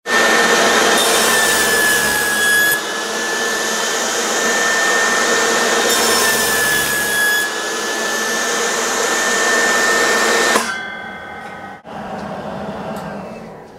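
Benchtop table saw running with a steady high whine, cutting through wood twice. About ten and a half seconds in, the sound cuts off abruptly as the Whirlwind flesh-sensing blade brake stops the spinning blade within an eighth of a second, an emergency stop triggered by a hand too close to the blade. A fainter, fading whirr follows.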